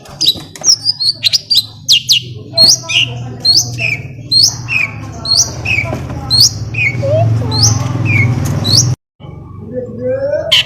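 Long-tailed shrike singing a quick series of sharp, downward-sliding notes, about two a second, over a steady low hum. The sound cuts out abruptly for a moment about nine seconds in, then comes back.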